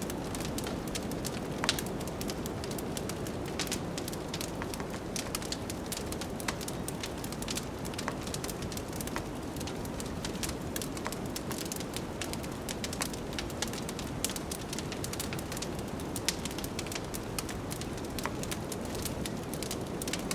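Wood fire crackling in a fireplace, with many small sharp pops and snaps, over a steady low rush of blizzard wind.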